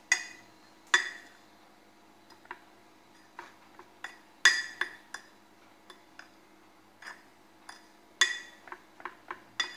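Metal spoon stirring dry crumbs in a ceramic mug, clinking against its sides at an uneven pace. The loudest clinks come at the start, about a second in, around four and a half seconds and around eight seconds, with fainter taps between.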